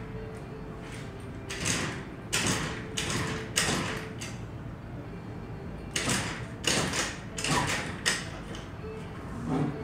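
Honda Dio AF35's 50cc two-stroke scooter engine being kick-started over and over, each kick turning it over in a short noisy burst. The kicks come in two runs of about four, and the engine does not settle into running.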